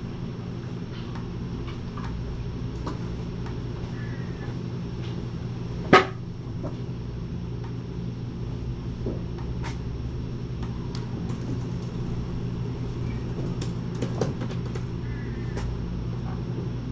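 Steady low room hum with scattered light clicks and taps, a single sharp knock about six seconds in, and a short flurry of taps a little before the end.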